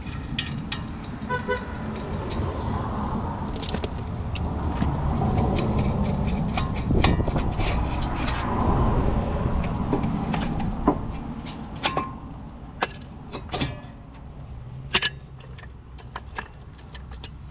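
Sharp metal clinks and taps as a brake caliper and its old pads are worked off a car's front disc brake. Under them is the rumble of a passing vehicle, which swells and fades over several seconds in the first half.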